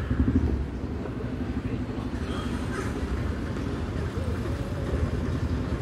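Steady low rumble of outdoor city ambience.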